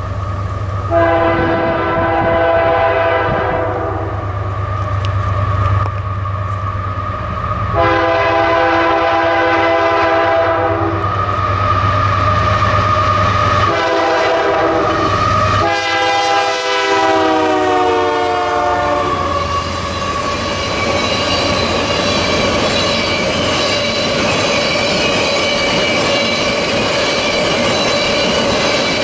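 Nathan K3L five-chime air horn on a GE AC44CW diesel locomotive sounding the grade-crossing signal: two long blasts, a short one and a final long one, over the engines' low rumble. The last blast drops in pitch as the locomotives pass. Loaded tank cars then roll by with a steady rolling noise and a high, steady wheel squeal.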